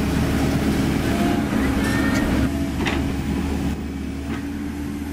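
Komatsu PC130F-7 hydraulic excavator's diesel engine running steadily as the machine travels on its steel tracks, with a sharp knock about three seconds in.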